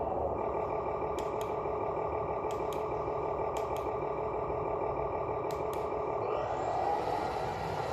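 Electronic truck-engine sound effect from the remote-control Welly Volvo truck's engine-sound feature, running steadily at a diesel-like idle and rising in pitch near the end. Pairs of sharp clicks come four times.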